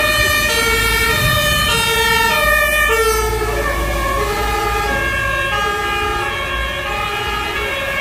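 Fire engine's two-tone siren passing close by, alternating steadily between a high and a low note. The pair of notes drops a little in pitch about three seconds in as the truck goes past.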